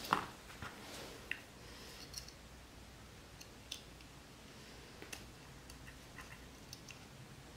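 Scattered light clicks and taps of the plastic carburetor float and its needle against the metal carb body as they are fitted back into place by hand. The sharpest click comes just at the start, with about a dozen softer ones after it.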